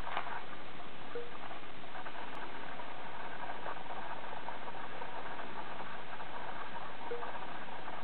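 Plastic baby rattle with beads in its two clear balls, shaken and turned in a baby's hands: a burst of rattling at the start, then lighter on-and-off rattling over a steady hiss.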